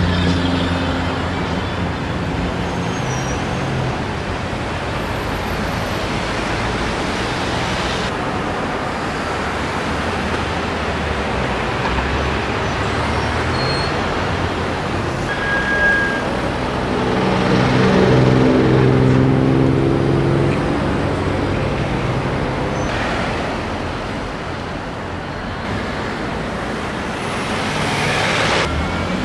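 Busy city street traffic with vehicles passing steadily. One engine runs close by at the start, a louder engine passes about two-thirds of the way through, and near the end an engine begins to rev up.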